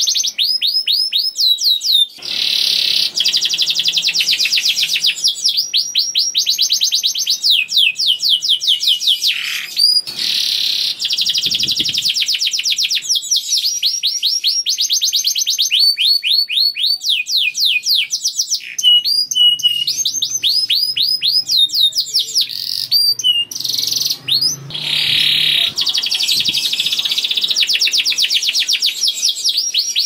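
Domestic canary singing continuously: long trills of fast repeated downward-sweeping notes alternating with buzzy rolling phrases, with only a few brief pauses.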